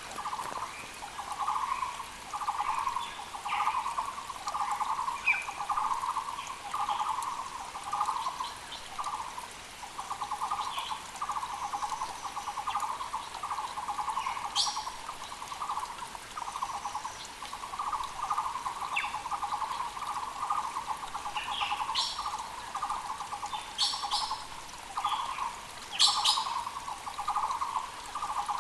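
Muller's (Taiwan) barbet calling: a steady, unbroken series of short, low, hollow repeated notes in quick phrases. Brief high chirps and calls from other forest birds break in now and then over the faint hiss of a mountain creek.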